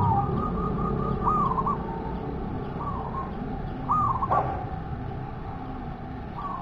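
Zebra dove (perkutut) cooing: several short runs of quick, rolling coos, with a single knock about four seconds in.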